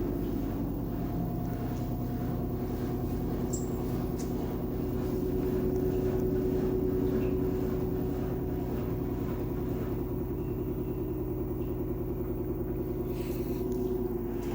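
LG 10 kg front-load washing machine running with its drum spinning: a steady motor hum and tone with a fast, even pulsing. This is the motor noise the owner takes for a fault.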